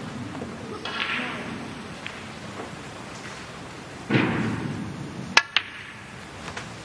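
Snooker balls striking: two sharp, ringing clicks a fraction of a second apart, shortly after a brief rush of noise about four seconds in.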